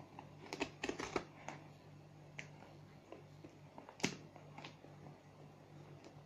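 Faint scattered clicks and taps of fingers and a plastic utility knife working at the edge of a cardboard box, with a sharper click about four seconds in.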